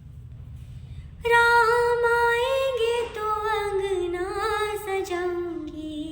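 A woman's voice singing a Hindi devotional bhajan, coming in about a second in with one long drawn-out line that slowly slides down in pitch, over a low steady hum.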